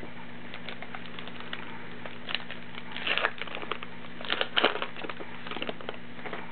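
Foil wrapper of a trading-card pack crinkling and tearing as it is ripped open by hand, in several short crackling spells, loudest about three and four and a half seconds in.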